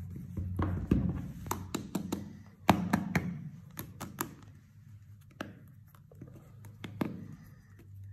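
Hands handling hard plastic slime containers: a quick run of sharp clicks and taps as the tubs are turned and set down, thinning to a few single taps after about four seconds.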